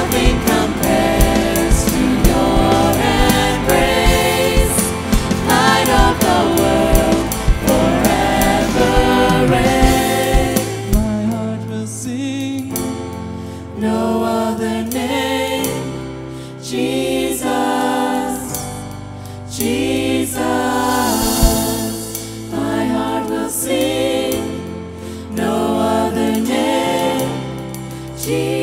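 Worship song with voices singing over a band. The drums drop out about eleven seconds in, leaving long held low notes under the singing in phrases with short dips between them.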